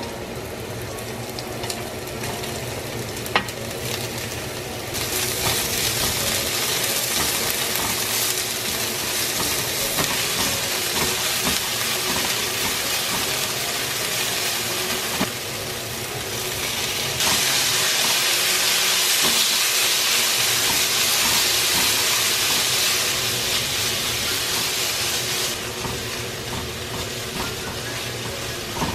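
Garlic, green onion and ground pork sizzling in oil in a nonstick wok, stirred and scraped with a spatula. The sizzle grows louder about five seconds in and again around seventeen seconds, then eases near the end. A sharp tap comes about three seconds in.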